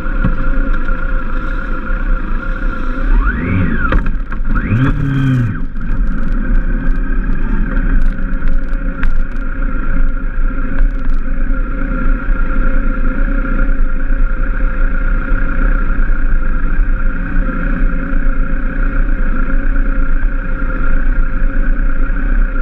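A motorcycle engine running steadily as the bike rides slowly along a street, heard from a camera mounted on the bike. About four seconds in, an engine revs up and back down twice in quick succession.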